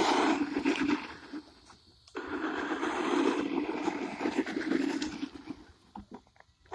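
Hart 20-volt battery RC truck driving on loose dirt, its electric motor and spinning tyres giving two bursts of throttle: a short one, then after a brief lull a longer one of about three seconds, before it eases off.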